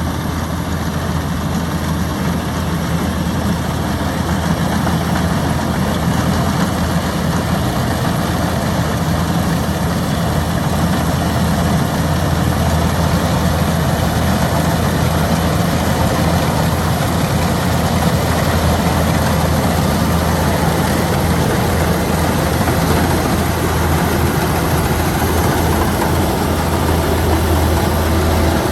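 Kubota DC-105X combine harvester running steadily: a low engine drone under a broad, even rushing noise.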